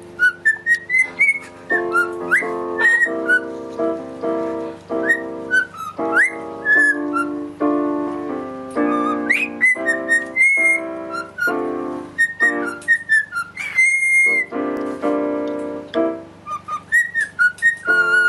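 Background music: a whistled melody over short, repeated chords with a bouncy rhythm.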